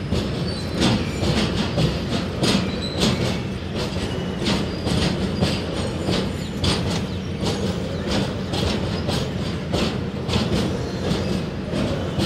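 Freight train of tank-container wagons rolling past, a steady rumble with the clickety-clack of wheels striking rail joints every half second to a second.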